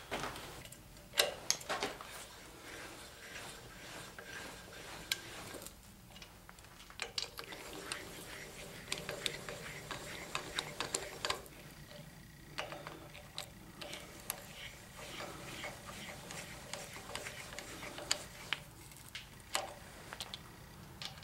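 Hand-cranked speed wrench running the water pump bolts into a Chevy 350 small-block, a string of irregular light clicks and ticks.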